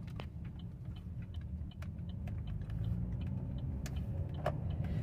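Road and engine rumble inside a Chevrolet Cruze's cabin while driving, with a regular light ticking of about two to three clicks a second and one louder click near the end.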